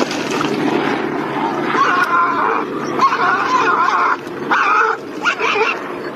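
An animal calling: a run of pitched cries of about half a second to a second each, with short breaks between them.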